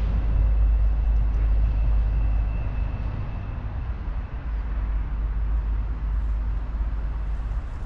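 Steady low rumble of outdoor background noise, with a faint thin high tone in the first few seconds.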